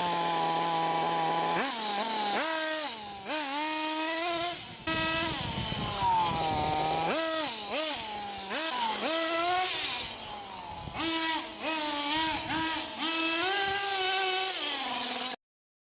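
Small nitro engine of a Kyosho DRX radio-controlled rally car, steady for about the first two seconds, then revving up and down in quick throttle bursts as the car is driven, its pitch climbing and dropping over and over. The sound cuts off suddenly near the end.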